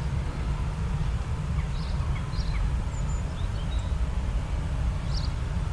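A steady low rumble with a few short, high bird chirps scattered through it.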